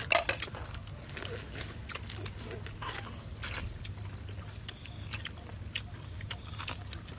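Boiled shrimp being shelled by hand and eaten: a run of sharp, irregular crackles of shell cracking and peeling, mixed with chewing, with a dense cluster of cracks right at the start.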